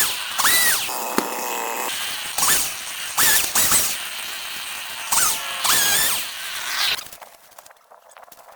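Chainsaw revving in repeated short bursts, its pitch rising and falling with each one, then dropping away to a much quieter stretch near the end.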